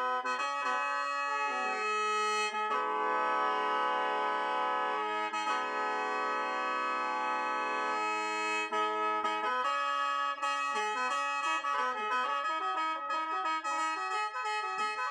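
Khaen, the Lao bamboo free-reed mouth organ, being played: several reed notes sound together over a high note held throughout. It sustains one long chord through the middle, then moves into quicker note changes near the end.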